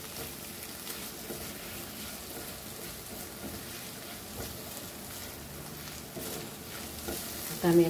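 Oyster chilli fry sizzling gently in a non-stick pan as it is stirred with a silicone spatula.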